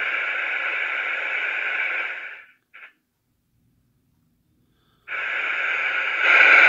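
Royce I-600 CB radio's receiver static hissing from its speaker with the squelch open. The squelch knob cuts the hiss off about two and a half seconds in. The hiss opens again about five seconds in and grows louder near the end.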